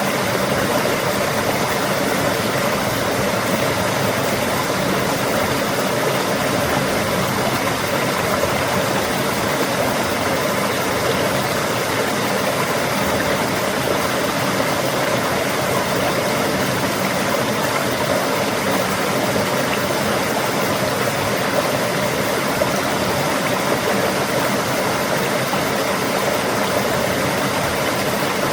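Rushing water, a loud, steady hiss and roar that does not change.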